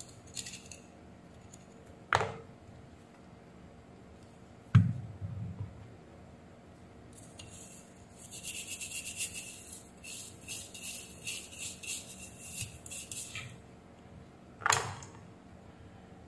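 A stiff nylon brush scrubbing a circuit board in quick back-and-forth strokes for about six seconds, cleaning flux residue from desoldered pads. Before it come a few sharp knocks, the loudest a low thump about five seconds in, and another knock comes near the end.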